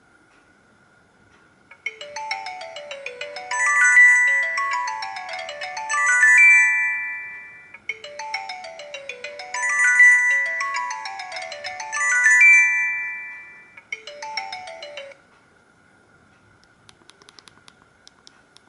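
Samsung SGH-E900 mobile phone playing one of its original built-in ringtones: a melody of quick runs of notes that starts about two seconds in, plays its phrase twice, and cuts off about a second into a third pass.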